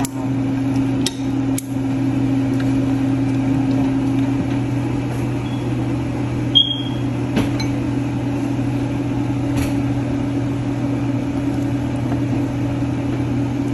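Steady low electric hum of a running kitchen appliance motor over a faint hiss, with a few short sharp clicks of utensils against an aluminium pot.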